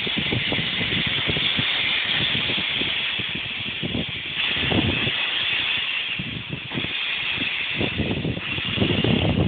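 Oil-fired narrow-gauge steam locomotive hissing steam steadily, with irregular low gusts of wind buffeting the microphone.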